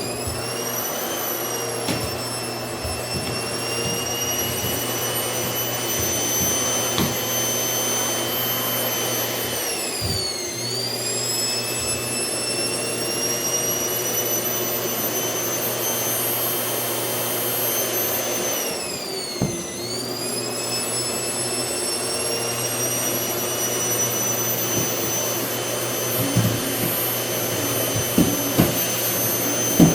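Household vacuum cleaner running: its high motor whine spins up at the start, then holds steady. The pitch sags and recovers twice, about ten and nineteen seconds in, with small knocks of the nozzle on the floor throughout.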